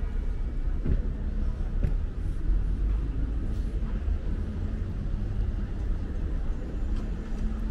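City street ambience: a steady low rumble of car traffic moving close by.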